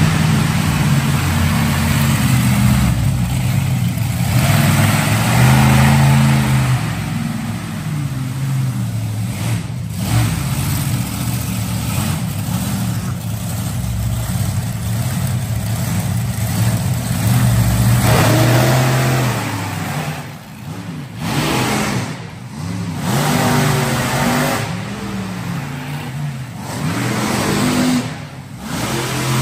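Monster truck engines revving hard, the pitch climbing and falling as the trucks race over the dirt course. The engine sound dips sharply a few times in the second half as the throttle is lifted, then picks up again.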